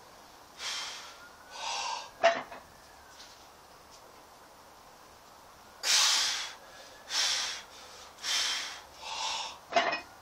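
A lifter's forceful breaths between reps of a heavy barbell back squat. Two breaths and a short sharp one come in the first couple of seconds, then a pause of about three seconds, then a quick run of four breaths ending in a short sharp one as he braces and starts down.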